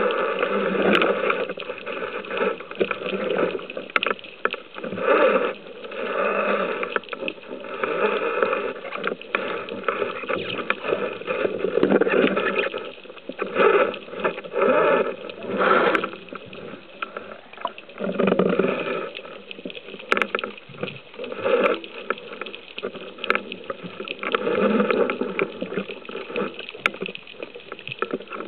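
Muffled underwater water noise picked up through a camera housing as a spearfisher swims, swelling and fading in irregular surges every second or two.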